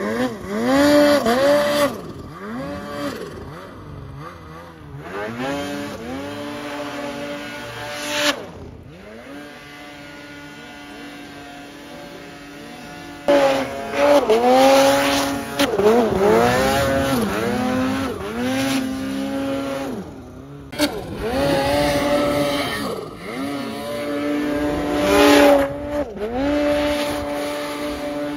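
Snowmobile engines revving up and easing off again and again as the sleds are ridden through deep powder snow. A second, louder sled comes in sharply about halfway through.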